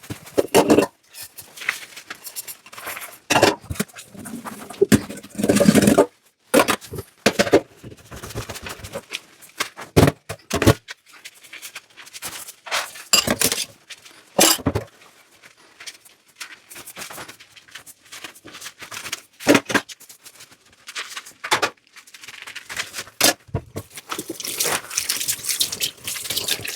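Dishes and cutlery clinking and knocking against each other and the sink in irregular clatters as they are washed by hand, with water running near the end.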